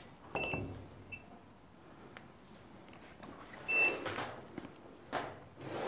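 Multimeter continuity buzzer giving short high beeps, twice clearly (about half a second in and again near four seconds), as the probes touch terminals of a three-phase changeover switch; each beep signals that the terminals are connected through the switch. Handling noise as the clamp meter is set down on the bench.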